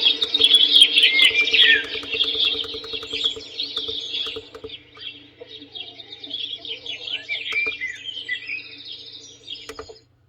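Recorded birdsong with many quick chirps and whistles, played as a built-in nature sound of a sunrise alarm clock, over a steady low hum. It thins out in the second half and cuts off abruptly near the end.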